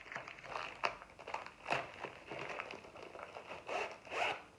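White plastic packaging around a rolled diamond-painting canvas rustling and crinkling as it is handled and opened, with a few louder short rips, one just under two seconds in and two near the end.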